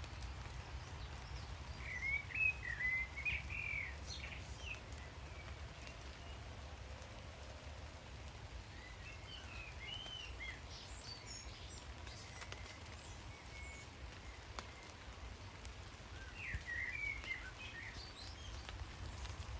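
A songbird singing three short, warbling phrases several seconds apart, over the steady hiss of rain falling on woodland.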